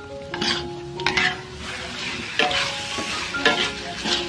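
Metal spatula scraping and knocking against a wok, about five strokes, as thick chili sambal with jengkol slices is stirred. Sizzling between the strokes.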